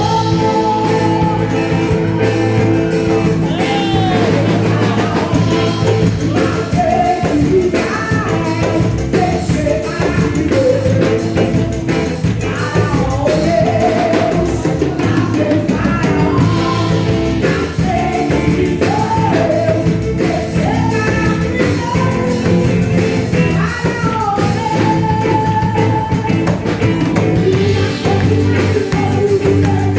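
Song sung over band accompaniment with a steady beat, the melody carried by a singing voice throughout.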